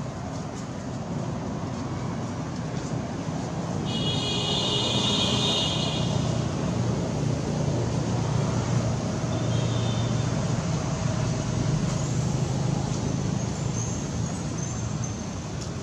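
Steady low drone of road traffic, swelling a few seconds in and holding. A high-pitched steady tone sounds for about two seconds near four seconds in.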